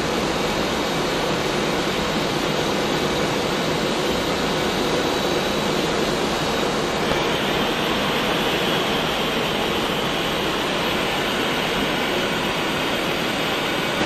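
Steady flight-deck noise of an Airbus A330 in descent: an even rush of airflow and air-conditioning with no break or change in level.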